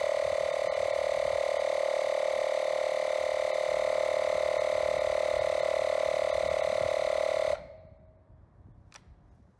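Makita MP180DZ cordless tyre inflator running, its compressor making a steady buzzing whine with a fast even pulse while it pumps air into a tyre. It cuts off suddenly about seven and a half seconds in.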